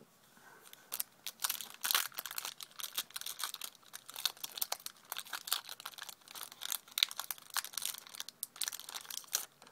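Foil Yu-Gi-Oh booster pack wrapper crinkling and being torn open by hand, a dense run of sharp crackles that starts about a second in and stops just before the end.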